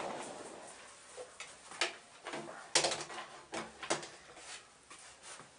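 Irregular sharp clicks and knocks, about ten of them and loudest about three seconds in, as the metal reel arm and fittings of a vintage 8mm film projector are handled and adjusted by hand.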